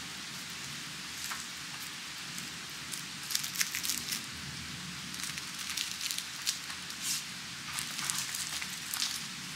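Rain falling in a steady hiss, with irregular sharp drops ticking and crackling on a surface, more of them from about three seconds in.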